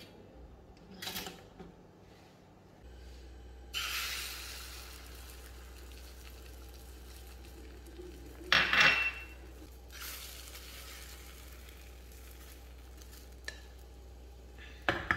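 Beaten egg sizzling in a small non-stick frying pan on a gas burner. About halfway through comes a loud metallic clatter of utensil against pan, and near the end a sharp knock.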